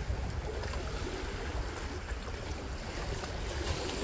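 Wind buffeting the microphone as a steady, uneven low rumble, with small sea waves washing against shoreline rocks.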